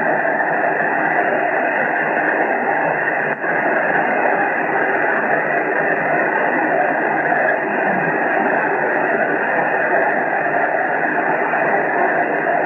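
Steady hiss of band noise from a Yaesu transceiver's speaker receiving on lower sideband, cut off sharply above and below by the receive filter. It dips briefly about three and a half seconds in.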